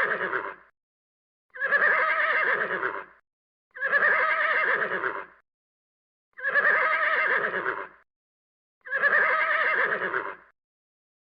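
Horse whinnying: the same wavering call repeated five times, each about a second and a half long with short silences between.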